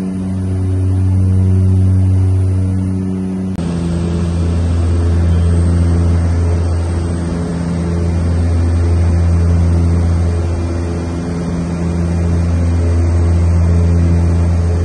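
Cabin drone of a de Havilland Canada Twin Otter seaplane's twin turboprop engines and propellers in cruise: a steady low propeller hum whose loudness swells and fades every four seconds or so. The tone changes abruptly about three and a half seconds in.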